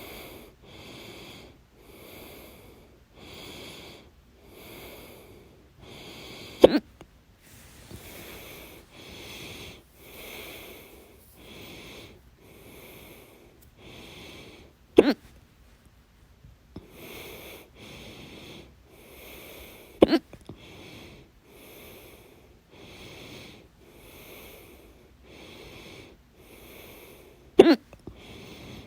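A person hiccuping loudly four times, several seconds apart, over steady rhythmic breathing at about one breath sound a second.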